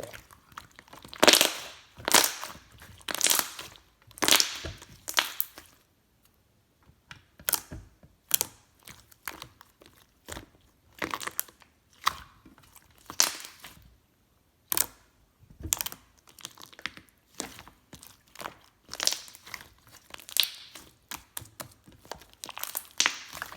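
Pink slime being squeezed, stretched and pressed by hand, giving irregular crackling, popping and squishing bursts about one to three times a second with short pauses between.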